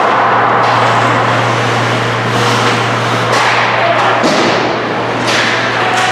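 Ice hockey play in an indoor rink: skates scraping the ice and sharp clacks of sticks and puck, a few seconds apart, over a murmur of voices and a steady low hum.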